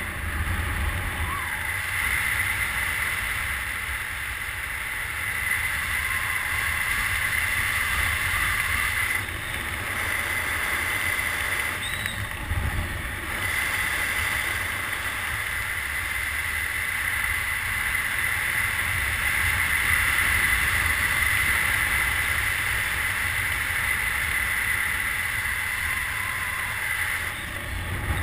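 Steady wind rushing over a helmet camera's microphone during a parachute descent under an open canopy, with a low rumble and a higher hiss and no other distinct events.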